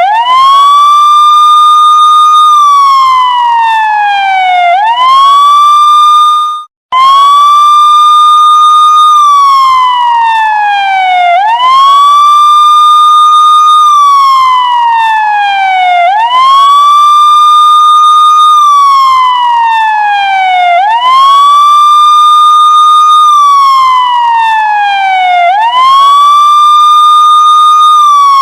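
Police car siren sounding a loud wail: the pitch sweeps up quickly, holds high for a second or so, then falls slowly, the cycle repeating about every four and a half seconds. The sound cuts out for a moment about six and a half seconds in, then the wail starts again.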